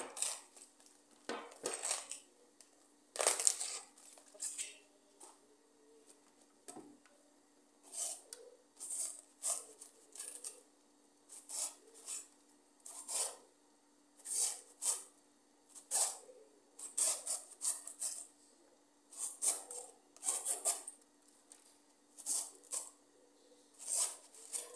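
A kitchen knife shredding a raw cabbage held in the hand: a crisp slicing stroke about once a second, at uneven spacing, as thin strands are cut off the head.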